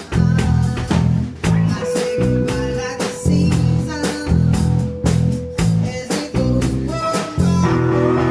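A live band playing with electric guitars and a drum kit, the drums keeping a steady beat under the guitars. A long held note rings through the middle, and sustained chords come in near the end.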